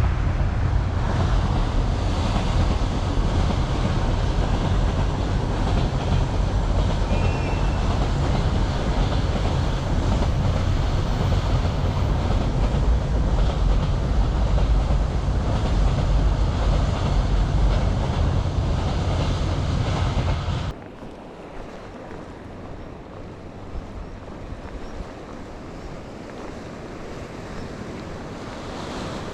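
Wind buffeting the microphone over the steady wash of sea surf, a loud low rumble. It cuts off suddenly about 20 seconds in, leaving a quieter steady wash of waves and wind.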